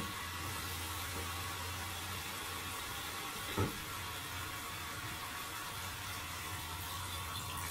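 Steady kitchen background noise: an even hiss over a low hum, with one short knock about three and a half seconds in.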